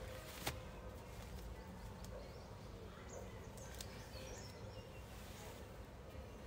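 Quiet room background with a steady low hum, broken by a couple of sharp clicks and a few faint, short high chirps.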